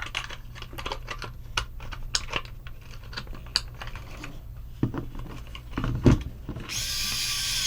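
Light clicks and taps from small plastic parts and wires being handled, with two louder knocks past the middle. Near the end comes about a second of steady hissing whir.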